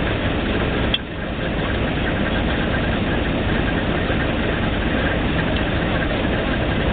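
Failing 1250 drilling rig running with a steady engine noise. A single sharp click comes about a second in, and the sound dips briefly after it.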